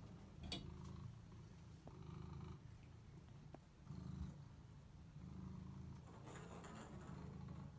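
Longhaired domestic cat purring, a low pulsing rumble that swells and eases every couple of seconds, with a light tap about half a second in.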